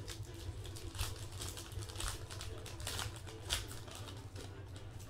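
Foil wrapper of a football trading-card pack crinkling as it is torn open and handled by hand, a run of short, irregular crackles.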